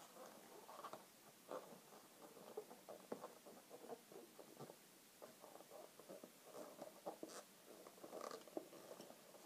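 Faint, irregular squeaking and rubbing of inflated latex balloons, 260 modelling balloons and 5-inch rounds, being twisted and pressed together by hand, with a few small sharper squeaks along the way.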